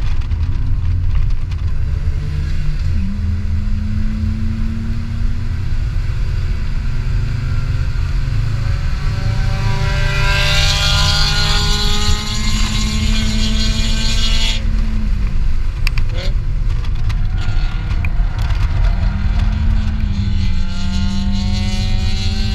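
A 2003 BMW 325i's 2.5-litre inline-six, heard from inside the cabin, accelerating hard on track with the revs climbing steadily for about ten seconds while a hiss builds. About fourteen seconds in the revs drop suddenly, and near the end they climb again.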